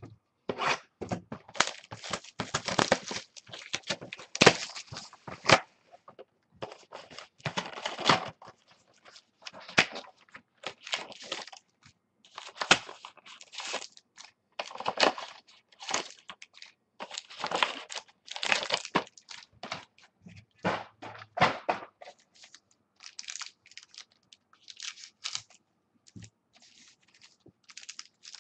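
Foil wrappers of trading card packs being torn open and crinkled, with cards handled in between, in uneven bursts of crackling and rustling.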